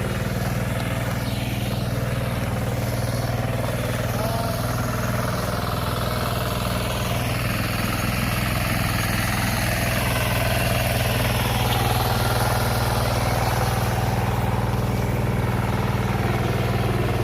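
Two-wheel hand tractor (kuliglig) engine running steadily as it works the field, a constant low drone that swells slightly midway.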